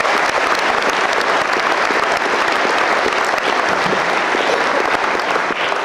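Audience applauding, many hands clapping at a steady level, starting to die down near the end.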